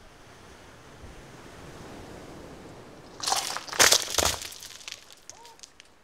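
A tall stack of balanced beach stones collapsing, the stones clattering down onto the boulder and the pebbles below in a loud burst of knocks about three seconds in, over the steady wash of surf.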